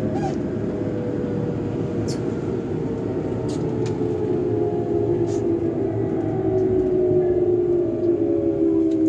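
Electric train running, its traction motors whining in several tones that slowly fall in pitch as it slows, over a steady low rumble, with a few short clicks.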